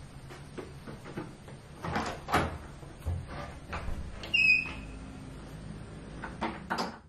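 Knocks and clatter of a cordless drill and a plastic tray being picked up and handled on a wooden shelf, with a short high squeak about four and a half seconds in.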